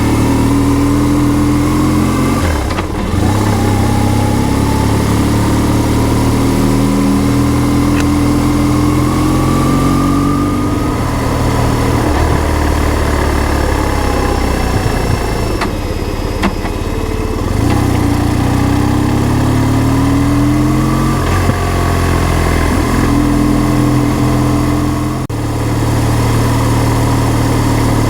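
BMW R1150R's air/oil-cooled boxer twin running under way, its pitch rising and falling several times with the throttle, with brief breaks about three seconds in and near the end.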